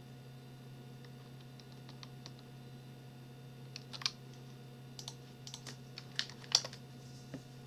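Computer keyboard keystrokes: a few light taps, then a pair of sharper presses about four seconds in, a Ctrl+S shortcut, and a quick cluster of keystrokes a second later, the loudest near the end.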